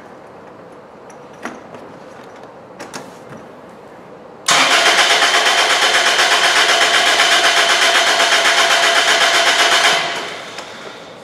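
A car engine is cranked over by its starter motor for about five seconds with no catch, because its fuel injection is disabled by a pulled EFI relay. The cranking starts suddenly about four and a half seconds in and has an even, rapid pulsing as the cylinders come up on compression. The starter and engine are in good shape: the starter draws normal current while cranking.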